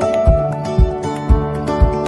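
Background music with a steady beat of about two low thumps a second under a simple melody.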